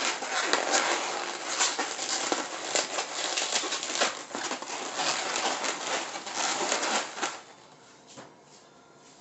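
Inflated 260 latex twisting balloons rubbing against each other and against the hands as they are twisted and a bubble is pushed through: a dense crinkly rustle with small clicks. It drops away about seven seconds in.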